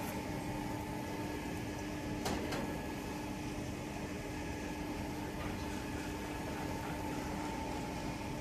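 A running farm machine hums steadily with two even tones, with one faint knock about two seconds in.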